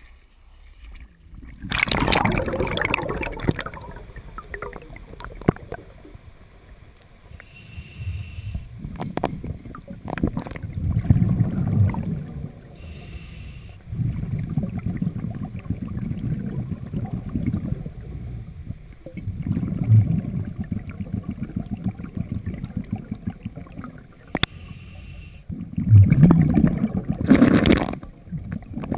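Water noise from a camera going under: a splashy burst about two seconds in as it breaks the surface, then low rumbling swells of underwater water movement every few seconds.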